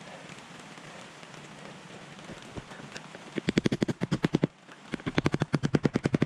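Rapid light hammer taps driving roofing nails through an ONDURA corrugated bitumen ridge cap, in two quick runs of about a second each in the second half. Under them a steady hiss of rain.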